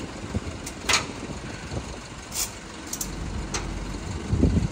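Tow truck working on a broken-down car: a truck engine running, with a few sharp clanks and knocks and a low rumble that builds near the end.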